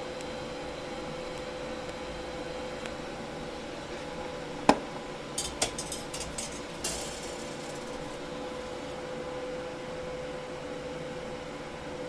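TIG welder running on stainless steel: a steady buzzing hum. About five seconds in comes one sharp click, then a quick string of smaller ticks.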